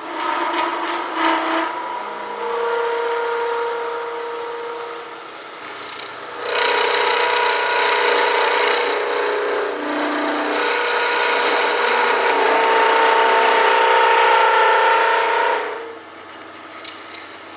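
Half-inch bowl gouge cutting a spinning elm-burl-and-resin hybrid blank on a wood lathe: a scraping hiss with a steady humming tone under it. The cut eases off about five seconds in, resumes a second later, and stops shortly before the end.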